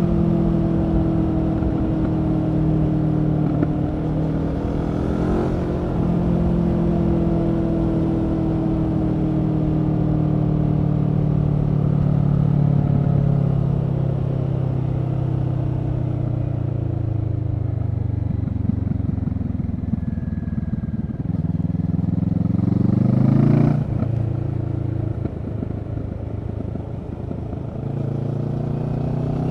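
Kawasaki Z650's 649 cc parallel-twin engine through a Leo Vince EVO Carbon aftermarket exhaust, under way: it runs steadily at cruising speed, then the revs fall gradually as the bike slows. About three quarters of the way through the revs rise sharply and then drop off suddenly.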